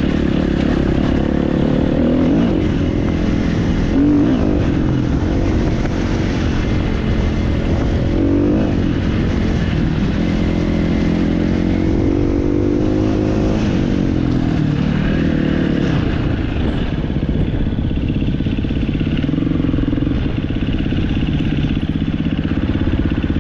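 Off-road motorcycle engine running, its pitch rising and falling again and again as the throttle is opened and closed, with a mechanical clatter under it.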